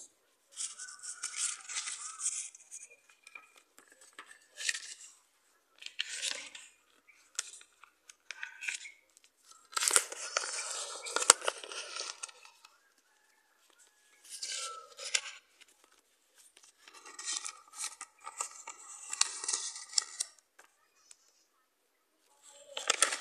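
A sheet of paper being folded and creased by hand: rustling and crinkling in short bursts with brief pauses between, the longest stretch about ten seconds in.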